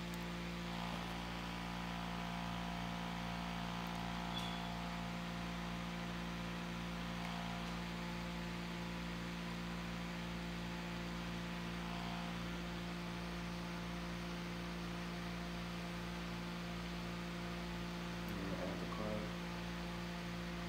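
Steady low electrical hum, with a fainter higher tone over it for about the first twelve seconds.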